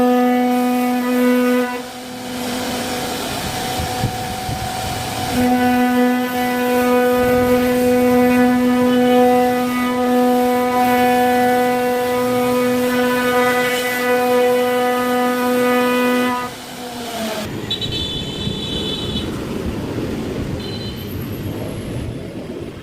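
CNC router spindle running with a steady high whine over the hiss of cutting. The whine drops out about two seconds in and returns a few seconds later. About three-quarters of the way through its pitch sags and it stops, leaving a rough, noisy hum.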